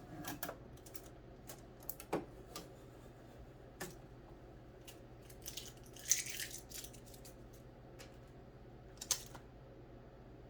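Hands unpacking a sewing machine and its accessories: scattered light clicks and knocks of plastic parts, with a brief rustle of packaging about six seconds in.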